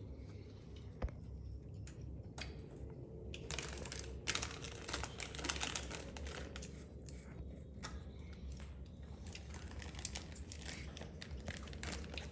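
Irregular light clicks and crinkling rustles of small objects being handled, growing busier about three and a half seconds in, over a steady low hum.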